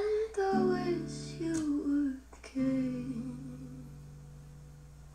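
A song with a female voice, played from a vinyl record on a turntable through horn loudspeakers. The sung closing notes glide over held chords, then the music fades away near the end.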